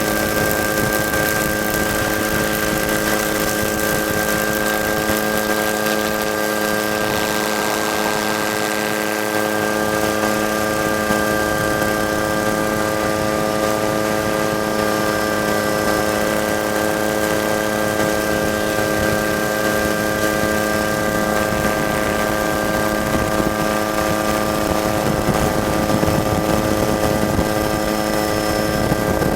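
Helicopter running at a steady cruise: a constant drone of engine and rotor noise made of several fixed tones over a rushing hiss, with no change in pitch.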